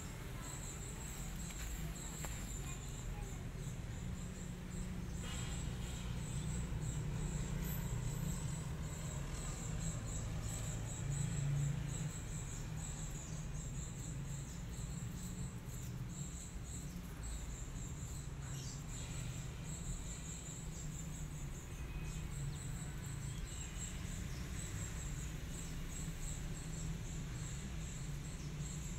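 Insects calling outdoors: a steady, high, pulsing trill, over a low background rumble.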